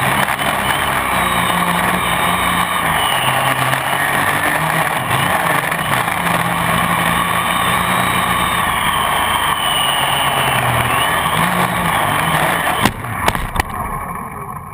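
Gaui 500X quadcopter's four electric motors and propellers whirring, heard from a camera mounted on its frame, the pitch shifting as the throttle changes. Near the end a couple of knocks mark it touching down on the grass, and the motors start to wind down.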